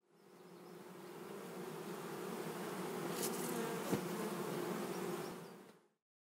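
Bee buzzing sound effect for a logo sting. It fades in, is marked by a short swish and then a sharp hit about four seconds in, and stops about six seconds in.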